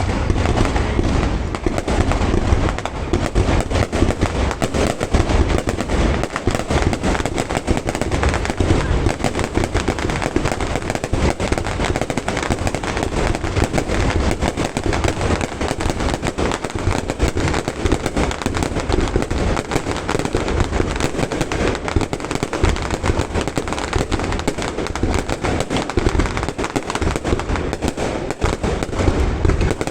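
Fireworks display: a dense, unbroken barrage of overlapping bangs and crackles, loud and even throughout with deep booms underneath.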